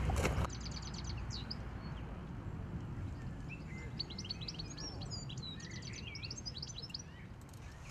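Small songbirds chirping and twittering, the calls busiest in the second half, over a low steady rumble. A louder rustling noise cuts off about half a second in.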